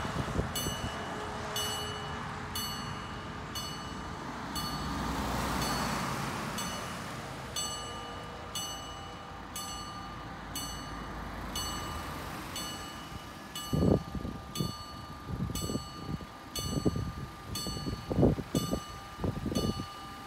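Mechanical level-crossing warning bell striking about once a second, each stroke ringing on. A passing truck fades away in the first few seconds. Near the end, a run of uneven low thumps is louder than the bell.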